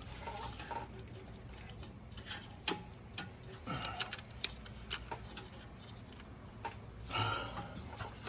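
Irregular sharp clicks and light taps of hand tools and metal parts being handled while working on a diesel engine.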